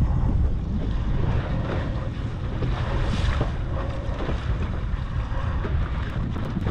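Wind buffeting the microphone in a heavy, steady rumble, over water sloshing and splashing against a boat's bow.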